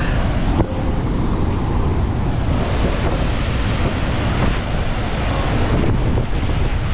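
Large waterfall in monsoon flood, a huge volume of water plunging over a cliff: a loud, steady rushing noise with a deep low rumble.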